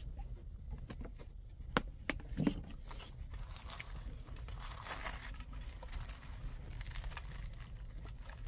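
Scattered rustling and crinkling, with a few sharp clicks about two seconds in.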